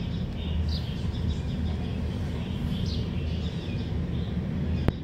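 Outdoor background: a steady low rumble with small birds chirping faintly at intervals. A single sharp click comes near the end.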